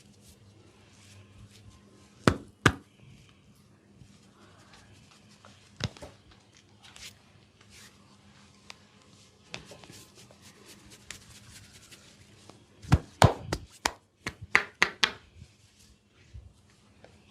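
Sharp slaps of hands striking the body in percussion massage. There are two quick strikes about two seconds in, one more near six seconds, and a rapid run of about eight near the end.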